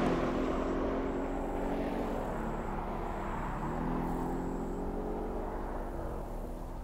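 Audi RS 6 Avant (C7)'s 4.0 TFSI twin-turbo V8 accelerating away after passing by, fading into the distance. The engine note climbs, dips about two seconds in, climbs again, then eases off near the end.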